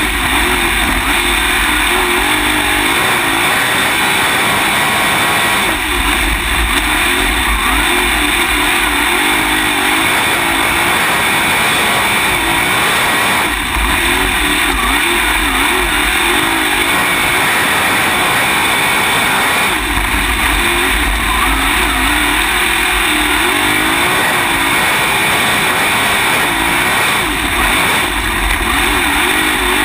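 Open-wheel dirt-track race car's engine heard from on board at racing speed, the pitch rising and falling over and over as the driver accelerates and backs off through the turns of a qualifying lap. A low rumble swells in and out every several seconds.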